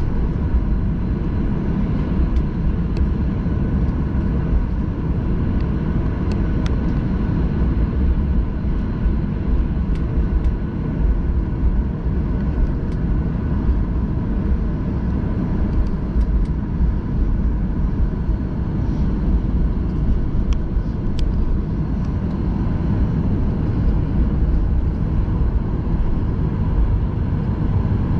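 Jet airliner cabin noise: a steady low rumble of engines and airflow heard from inside the cabin, with a faint steady hum and a few light ticks.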